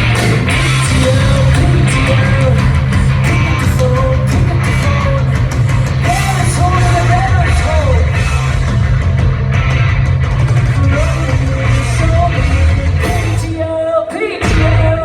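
Live rock band playing loud, with heavy bass and drums under a singer's voice that sings and yells. The music breaks off briefly near the end and then crashes back in.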